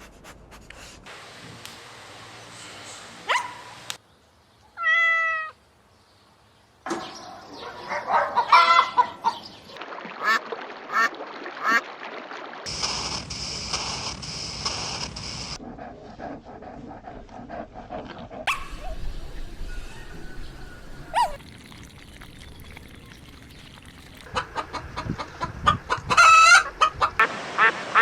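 Short clips of domestic animals spliced one after another, with abrupt cuts between them. A cat gives one drawn-out meow a few seconds in, and near the end ducks quack rapidly.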